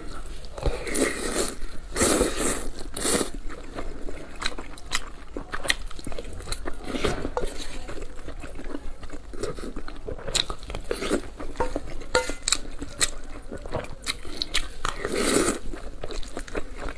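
Close-miked eating: a person biting and chewing food, with crunches and mouth clicks coming at an uneven pace.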